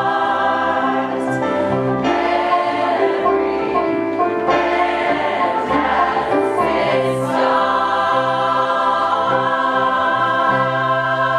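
Choir of mostly women's voices singing in harmony, the parts moving through a busier passage before settling onto a long held chord about eight seconds in.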